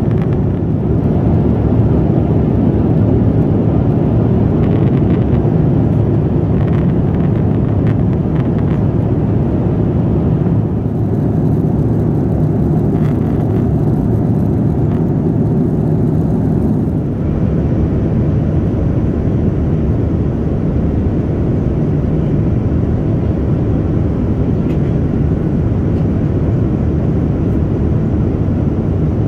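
Steady low rumble of a Boeing 787-9 airliner, engine and airflow noise heard from inside the cabin, holding level and pitch throughout.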